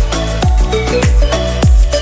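Electronic dance music with a steady, deep kick-drum beat of about two strokes a second under synth notes.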